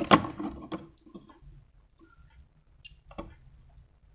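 Light clicks and rubbing from multimeter test probes and fingers handling a small circuit board. The handling is busiest in the first second, then fades to small ticks, with one sharper click about three seconds in.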